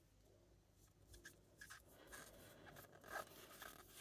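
Faint soft slides and ticks of trading cards being moved through the hands one at a time, the most noticeable about three seconds in.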